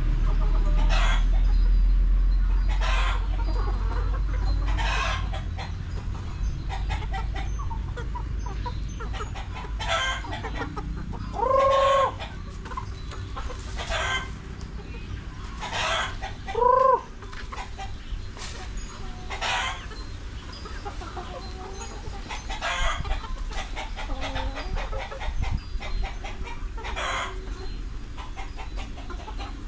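A flock of chickens clucking and calling, with short calls every second or two and two louder pitched calls about twelve and seventeen seconds in. A low rumble sits under the first few seconds.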